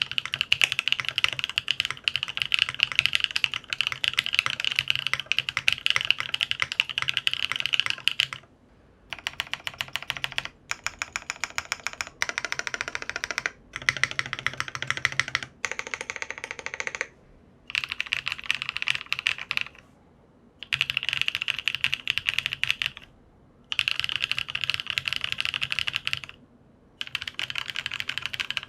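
Typing on a Geonworks Frog TKL mechanical keyboard with a 1.5 mm POM plate, stock HC Studio Roselle switches and ABS double-shot keycaps. Fast continuous typing, then about a third of the way in several runs of rapid repeated presses on single keys, each run with its own pitch, then typing in bursts with short pauses between them.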